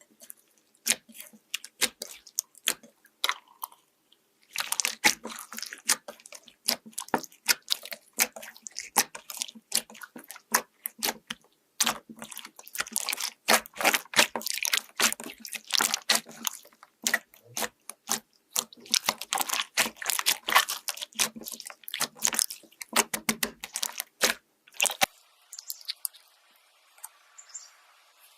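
Slime being squeezed and worked by hand, giving dense runs of crackling, popping clicks in bursts with short pauses. The crackling stops about 25 seconds in, leaving a faint, softer texture.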